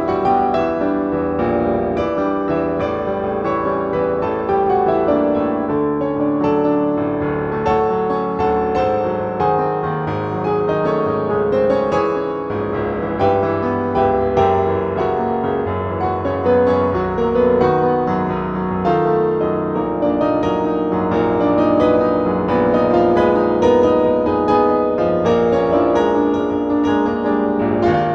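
Solo piano playing a fast, dense classical passage, many notes struck in quick succession with no pause.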